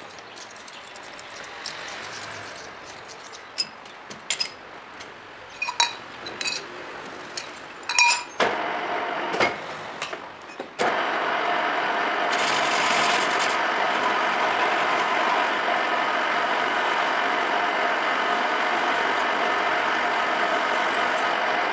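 Scattered metal clinks and clicks as a steel bar is clamped in a metal lathe's jaw chuck, then, about eleven seconds in, the lathe starts suddenly and runs steadily with a whine from its spinning chuck and headstock.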